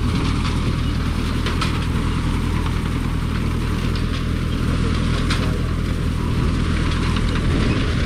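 Tractor engine running steadily while it pulls a McCormick-Deering grain binder through standing wheat, with the binder's cutting and tying mechanism clicking and clanking irregularly over the engine drone.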